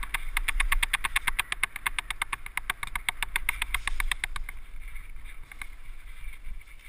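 Mountain bike riding fast down a dirt forest trail: a low rumble of the ride on the bike-mounted camera, with a rapid, even ticking that stops about four seconds in.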